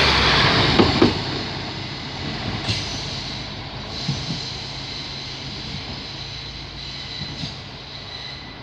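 Two coupled PESA Link SA139 diesel multiple units pulling away after passing close by, their rumble fading steadily as the train recedes. About a second in, a couple of sharp wheel clicks from the rail joints, and a thin high ring carries on through the fade.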